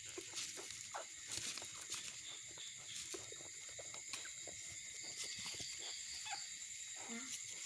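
A mother dog licking her newborn puppies: a run of small wet licking and smacking clicks over a steady hiss.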